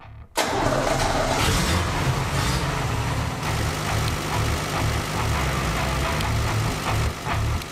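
Nissan Patrol's 3.3-litre diesel engine starting abruptly about half a second in and then running steadily.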